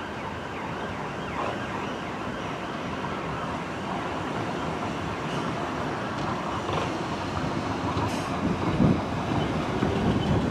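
Class 455 electric multiple unit drawing into the platform and slowing, its wheel and running rumble growing louder toward the end. A wavering, siren-like wail sounds underneath.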